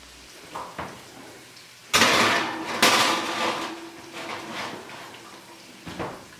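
Metal baking sheet clattering and scraping onto an electric oven's wire rack, starting with a sudden loud clank about two seconds in, with the oven door being handled and pushed shut near the end.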